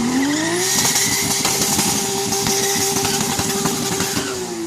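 An engine revving up, held at steady high revs for a few seconds with a crackling rasp, then easing off near the end.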